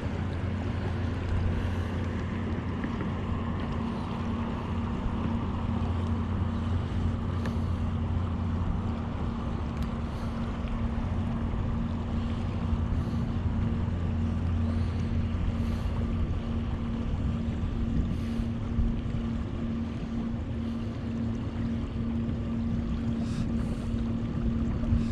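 An engine running steadily, a constant low hum that holds the same pitch throughout, with wind noise on the microphone.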